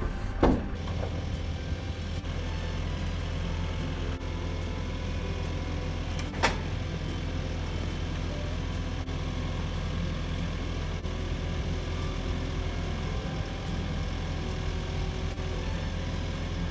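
An engine running steadily at idle, a low even drone, with a short sharp knock about half a second in and another about six and a half seconds in.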